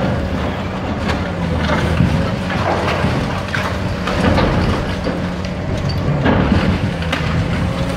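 Caterpillar high-reach demolition excavator's diesel engine running steadily under load, with several crashes and crunches of concrete and debris as its jaw tears into the building and rubble falls.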